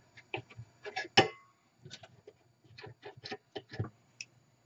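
Irregular light clicks and taps of a small screwdriver working at the metal clock dial ring on a Bakelite radio cabinet, prying the ring loose; the sharpest click comes about a second in.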